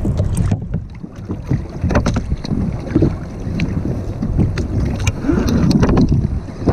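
Wind buffeting an action camera's microphone and water moving against a kayak, a loud low rumble, with a few sharp clicks and knocks scattered through it.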